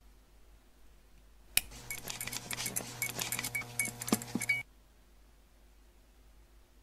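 Fluorescent tube starting up: rapid clicking and chinking of the starter over a steady ballast hum. It begins with a sharp click about a second and a half in and cuts off suddenly about three seconds later.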